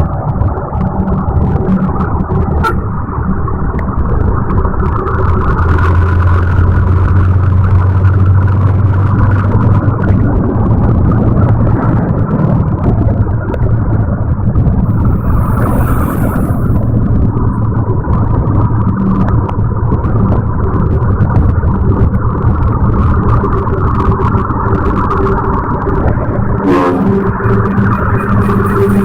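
Heavy diesel engine running steadily with a loud, low rumble that swells for a few seconds early on. A short hiss comes about halfway through.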